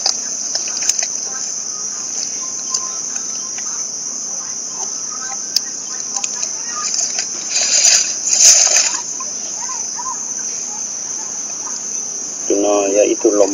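Steady, high-pitched drone of an insect chorus, with a couple of brief rustles about eight seconds in and a short voice-like call near the end.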